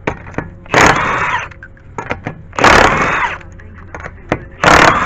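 Milwaukee M12 cordless impact wrench hammering the lug nuts off a truck wheel, in three short bursts about two seconds apart, with light clicks between them.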